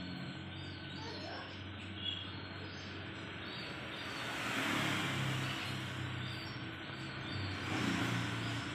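Background ambience with a steady low hum, and a vehicle passing that swells and fades about halfway through.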